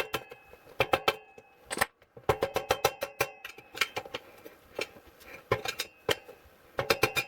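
Hammer tapping on a rod to drive a bearing out of a BMX bottom bracket: quick runs of ringing taps in several bursts, with short pauses between.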